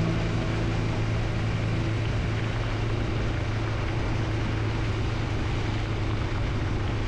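A steady low engine drone with an even rushing noise over it.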